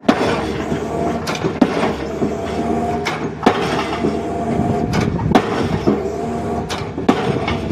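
Excavator engine running steadily while a drop hammer strikes a square pile, sharp knocks coming roughly every two seconds, often as a quick double knock.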